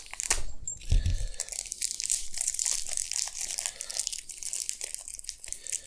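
Plastic packaging crinkling and crackling as small brake-hose fittings are worked out of it, a dense run of crackles throughout.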